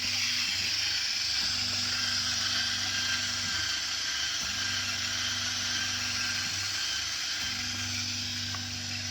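V687 PRO slimming machine's vacuum pump running in a pulsed mode after being started: a low hum that switches on for a few seconds, off for about a second, and on again three times, over a steady hiss.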